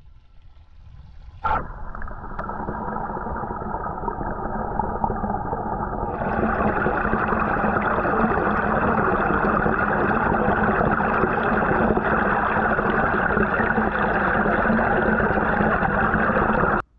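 Underwater sound of a koi pond picked up by a submerged GoPro: a steady rush of water and air-stone bubbling, with a knock about a second and a half in as the camera goes under. The sound grows louder and brighter a few seconds later, then cuts off suddenly near the end.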